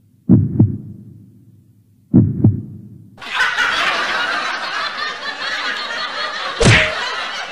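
Two double thumps of a heartbeat sound effect, about two seconds apart. About three seconds in, a loud, dense, crackling sound effect takes over, with a sharp burst near the end.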